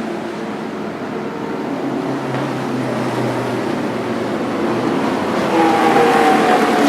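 Vintage Indy race car engines running on track: one fades off, then another comes in about five and a half seconds in and grows louder toward the end.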